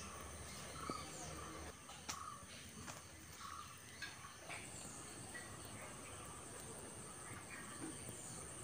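Faint garden ambience: a steady high-pitched insect chirring that turns into a fast pulsing trill about halfway through, with a bird's short calls repeating roughly once a second in the first half and a few faint clicks.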